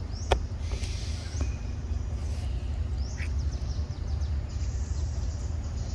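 Outdoor forest ambience: faint bird chirps and short rising calls over a steady low rumble, with one sharp click about a third of a second in.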